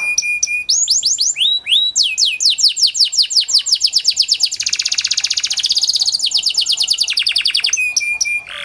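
Pied ('panda') domestic canary singing a long, varied song of rapid trills: rolls of quickly repeated sweeping notes that change speed every second or two, ending in a few short chirps.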